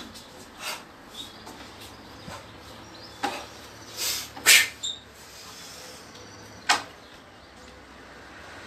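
Feet stepping and stamping on wooden decking and the uniform swishing as a person moves through a martial-arts form: a run of irregular sharp knocks and swishes, the loudest about four and a half seconds in, another near seven seconds.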